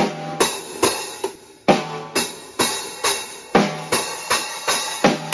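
Drum kit played with sticks: uneven drum strikes with cymbal crashes about every half second, the cymbal ringing on between hits.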